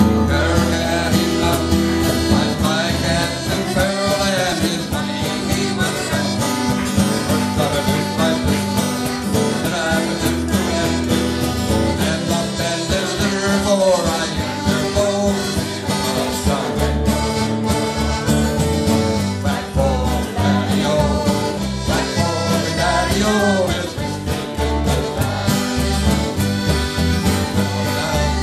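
Live band playing a song: a man singing lead over a strummed acoustic guitar, with electric bass, accordion and a cajon keeping the beat.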